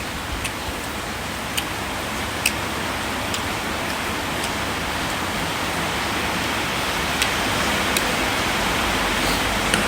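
A steady rushing noise that swells slightly over the seconds, with a few sharp clicks scattered through it.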